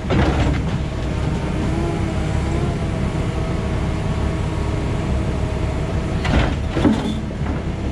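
Excavator engine and hydraulics running steadily under load as the bucket crushes an old concrete septic tank, with crunching and cracking of breaking concrete at the very start and again about six to seven seconds in.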